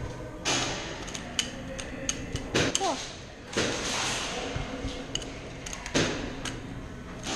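Irregular sharp clicks and knocks with a few short bursts of rustling noise.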